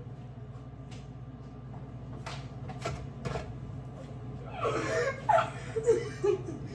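A few light clicks and knocks, then a woman laughing for a couple of seconds about two-thirds of the way in.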